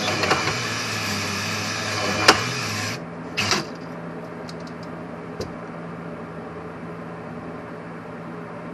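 Electric drill spinning a cylinder hone in a motorcycle's two-stroke cylinder bore, running steadily with a sharp click just before it stops about three seconds in. A brief rattle follows, then only a faint steady hum.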